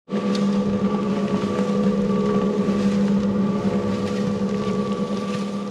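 Small cement mixer running steadily, its motor humming as the drum turns a batch of sand-and-cement mortar.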